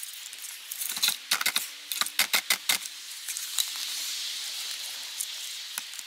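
Hands handling a halogen auxiliary lamp and its black plastic trim ring: a run of quick plastic clicks and rattles in the first three seconds, then a soft steady hiss.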